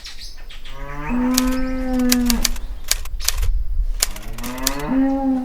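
A cow mooing twice: two long calls, each rising in pitch and then holding steady. Several sharp clicks are heard between and over the calls.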